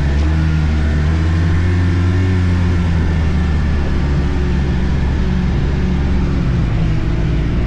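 Arctic Cat turbo snowmobile engine running steadily under way, its pitch wavering slightly, over a constant rush of noise.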